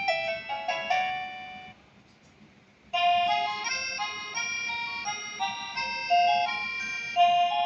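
Electronic ringtone melodies from the device's small speaker, a simple synthesized tune of single notes. The first tune cuts off a little under two seconds in, and after about a second of near quiet a different tune starts, as the ringtone is switched to the next song.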